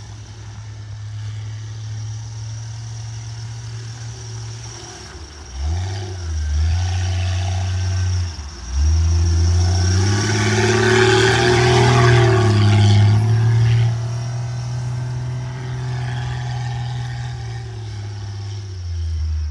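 Jeep Cherokee XJ engine running, then revving up about five seconds in, dropping off twice, and held at high revs for several seconds with a hissing rush of tyres spinning through deep snow, before easing back to a lower steady drone.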